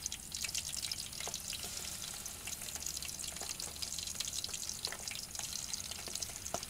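Chicken drumsticks sizzling and crackling in plenty of hot oil in a pan on a portable gas stove, with a few sharper clicks as pieces are handled in the pan.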